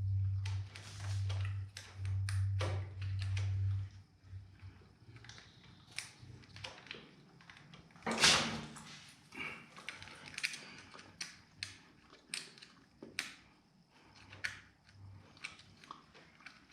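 Hands working a motorcycle clutch cable and its clips into place: scattered small clicks, knocks and scrapes, with one louder knock about eight seconds in. A low hum comes and goes in the first four seconds.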